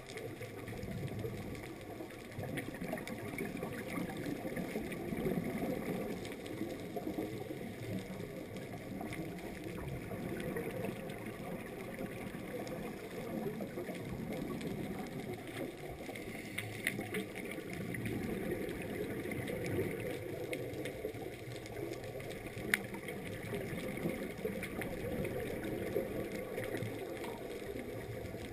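Muffled underwater sound through a GoPro's waterproof housing: a low gurgling rumble of scuba exhaust bubbles that swells and eases every few seconds, with a few sharp clicks.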